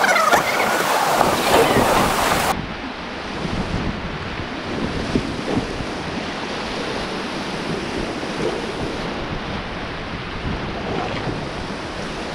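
Whitewater rushing and splashing around an inflatable raft running a river rapid, with wind buffeting the microphone. The sound turns duller about two and a half seconds in.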